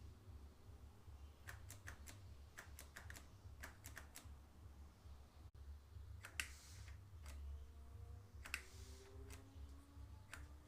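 Irregular sharp clicks and ticks from a 1990s bicycle's mechanism, about a dozen scattered through, the loudest about six and a half and eight and a half seconds in, over a faint steady low hum.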